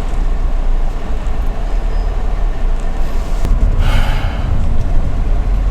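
Steady low rumble of a car driving, heard from inside the car, with a brief hiss about four seconds in.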